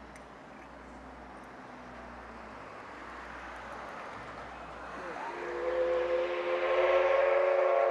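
Steam locomotive C58 239 sounding its steam whistle in one long blast of several tones together, starting about five seconds in and becoming the loudest sound. Before it, a steady rushing noise grows slowly louder.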